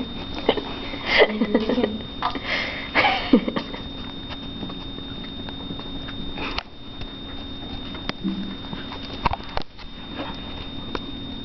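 Mosquito ringtone playing from a phone, set to a lower tone: one steady high-pitched tone throughout. Hushed voices murmur in the first few seconds, and there are a few light knocks later.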